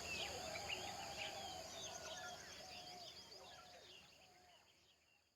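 Jungle ambience: many birds chirping and whistling over a steady high insect drone, fading out to silence.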